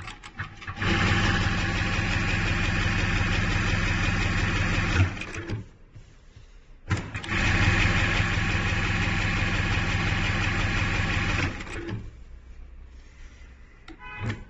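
ZY1968 computerized pattern lockstitch sewing machine running at speed as it stitches a row. It runs twice, about four seconds each time, starting and stopping abruptly, with a short pause and a few clicks between the runs.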